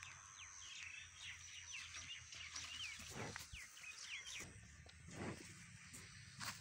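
Faint birdsong of small birds: a quick run of short chirps over the first four seconds or so, with a thin steady high tone behind it. A few soft knocks follow in the second half.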